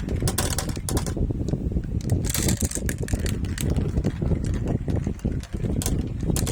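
Marbles rolling down a marble run track: a steady low rolling rumble with many quick irregular clicks and clacks as the balls knock against the track and each other.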